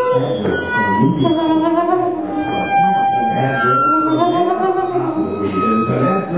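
Free-improvised music from saxophone and vocal sounds: several pitched tones at once, wavering and sliding up and down in pitch, with no steady beat.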